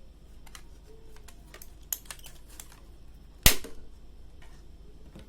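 Plastic router case being pried open, its snap-fit clips giving a few small clicks and one loud sharp snap about three and a half seconds in.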